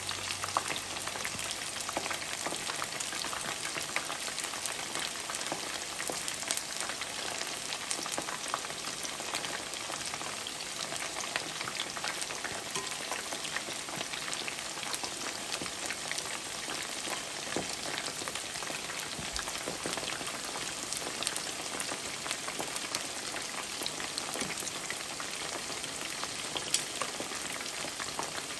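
Batter-coated chicken pieces deep-frying in hot oil: a steady, dense sizzle with fine crackling pops throughout and one louder pop near the end.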